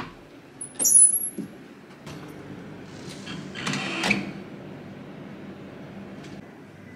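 Hotel room door hardware: a sharp metallic click with a brief high ring about a second in, then a rising rustle ending in the latch clicking shut about four seconds in.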